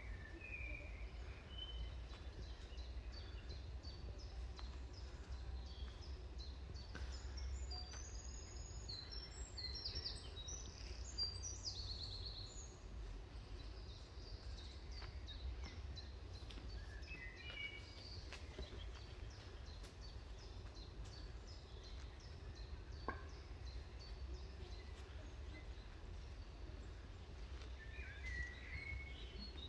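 Small birds singing and chirping in woodland, with a busy run of high calls about a third of the way in and a few more later, over a steady low rumble.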